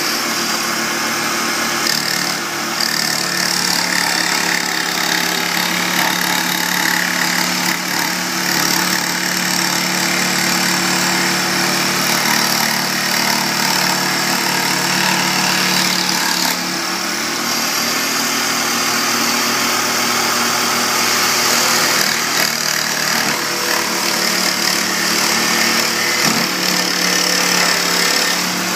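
A machine running steadily and loudly, with a continuous hum under mechanical noise.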